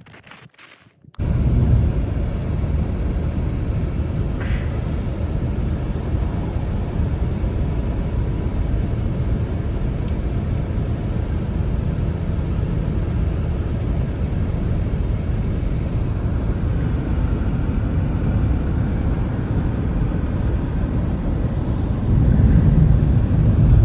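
Strong snowstorm wind: a loud, steady low rumble that starts suddenly about a second in and swells slightly near the end.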